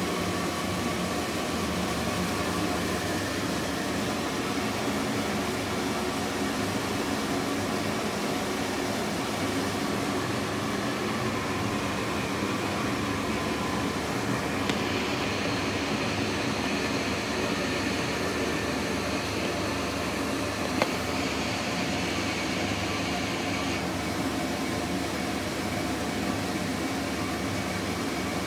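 Twin-blower ceiling exhaust fan running steadily, a constant rush of air. For about nine seconds in the middle a higher hiss joins it, and there is one sharp click about three-quarters of the way through.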